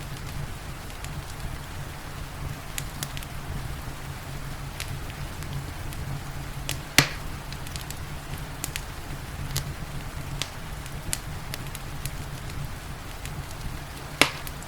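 Wood fire crackling in a fireplace with scattered small pops, and two louder sharp pops, one about halfway and one near the end, over a steady low rumble and soft rain.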